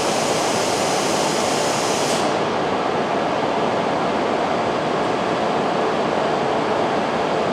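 E5 series Shinkansen train at the platform as it comes to a stop, with a steady rushing noise and no wheel squeal. The high hiss drops away a little after two seconds in.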